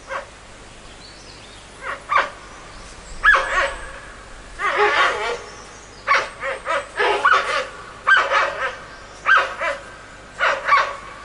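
Giant pandas calling during mating-season courtship: short, high, yelping calls in quick clusters, about one or two a second, with a longer drawn-out call about five seconds in.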